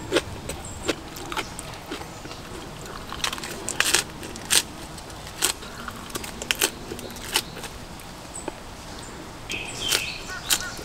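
A person chewing a mouthful of marinated pork and rice close to the microphone: wet mouth sounds with scattered sharp crunches and clicks, one every second or so.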